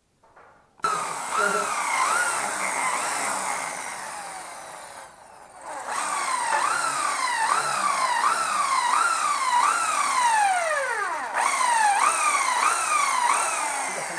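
Makita HP1630 hammer drill boring into the wall. The motor pitch rises and drops about twice a second as the bit loads. It stops briefly about five seconds in, winds down with a falling pitch near the end, then starts again.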